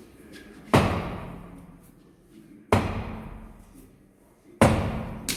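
Plastic hammer striking a stuck road wheel to knock it loose from the hub: three heavy blows about two seconds apart, each ringing out and fading, then a quicker knock near the end.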